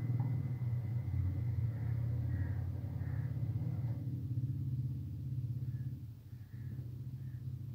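A steady low rumble with a brief dip about six seconds in.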